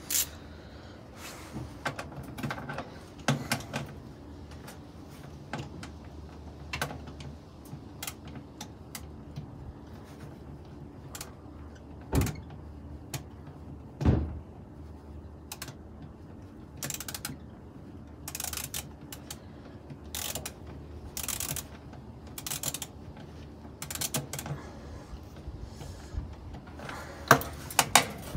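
Hand tools working on the metal gearcase and frame of a 1974 Whirlpool belt-drive washer being dismantled: scattered clicks, scrapes and clinks of metal on metal, with two louder knocks about twelve and fourteen seconds in.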